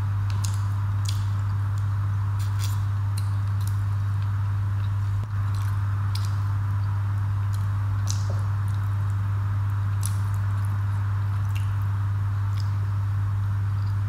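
Close-up eating sounds: wet chewing, mouth clicks and the squish of rice and curry being mixed by hand, as short irregular clicks over a steady low hum.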